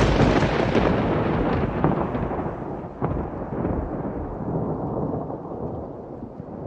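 Thunder sound effect: a loud, close thunderclap right at the start, then a long rolling rumble that slowly fades, with a second sharp crack about three seconds in.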